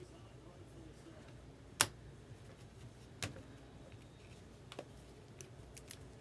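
Trading cards being handled and flipped through: scattered faint clicks and taps, the sharpest about two seconds in and another about three seconds in, over a low steady hum.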